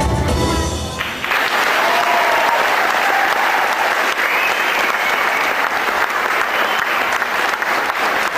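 Dance music stops abruptly about a second in, and an audience breaks into applause.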